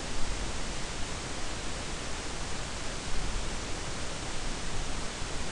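Steady hiss with a low rumble underneath: the background noise of the recording's microphone, with no distinct event standing out.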